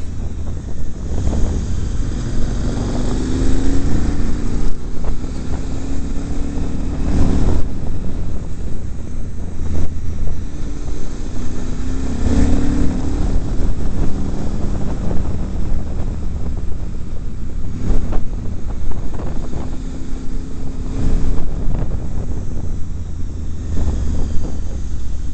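Motorcycle engine pulling hard and rising in pitch several times as the bike accelerates between bends, half buried under heavy wind buffeting on the microphone at riding speed.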